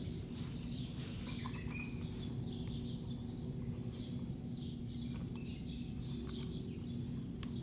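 Small birds chirping faintly over a steady low hum, with a few faint clicks of metal being handled near the end.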